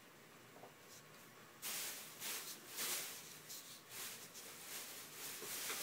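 Plastic bag crinkling and rustling, starting suddenly about a second and a half in and going on as loud, irregular crackles.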